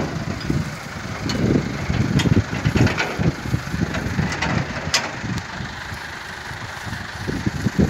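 Massey Ferguson tractor's diesel engine idling, with a few sharp knocks about three and five seconds in.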